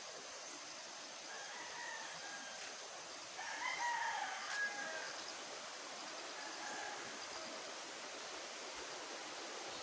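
A rooster crowing once, about three and a half seconds in, with fainter calls before and after, over the steady rush of a shallow rocky river.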